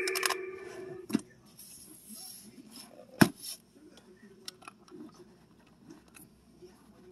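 The tail of the electronic toy pug's sound effect dies away in the first second. After that come a few sharp clicks and knocks from the plastic toy being handled, the loudest about three seconds in.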